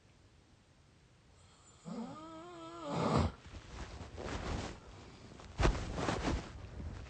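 Snoring through the mouth: after a quiet start, a wavering, whiny pitched tone lasting about a second, ending in a loud rasp. Then a few noisy snorting breaths follow, with a sharp one about halfway through the rest.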